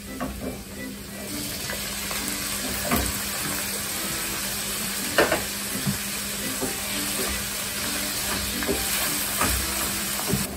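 Mixed vegetables and green bell peppers sizzling in hot coconut and sesame oil in a stainless steel pan. The sizzle swells about a second in as the vegetables go in, and a wooden spoon scrapes and knocks against the pan a few times while stirring.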